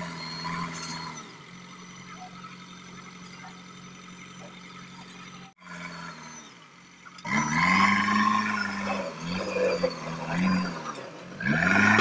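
JCB 3DX backhoe loader's four-cylinder diesel engine running at a steady speed, cutting out briefly about halfway, then louder and revving up and down several times as the loader works.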